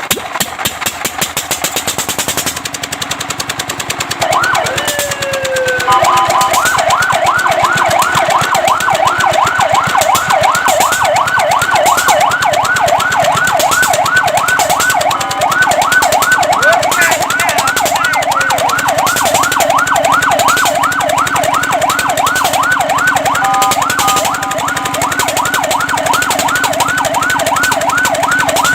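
Fire truck siren: after a few seconds of rapid pulsing clatter, it gives one slow rise and fall, then switches to a fast yelp of quick up-and-down sweeps, several a second, broken twice by a brief steady tone.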